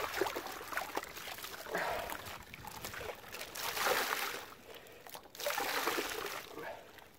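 A wet beaver hide being sloshed through soapy water in a plastic tub and lifted out, with water splashing and pouring off it back into the tub. The sound comes in repeated swells about every two seconds. This is the washing stage of tanning, getting the suds out of the fur.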